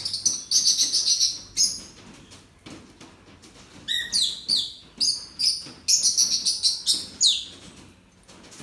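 Small birds chirping in quick high-pitched notes, many of them falling in pitch, in two runs: one in the first two seconds and another from about four to seven and a half seconds in.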